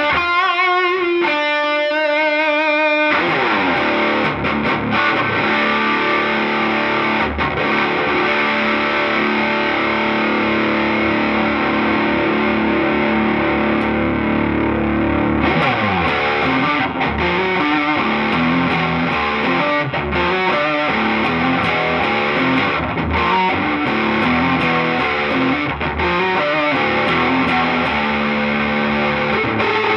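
2019 Gibson Les Paul Classic electric guitar played through an amplifier with distortion: wavy bent and vibrato notes in the first few seconds, then long held notes, then quicker riffing from about halfway in. Near the end it is played on the split neck pickup coil.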